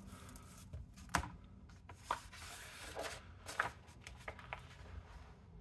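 Hardcover picture book being opened and its pages handled: faint paper rustling with a few light taps and clicks.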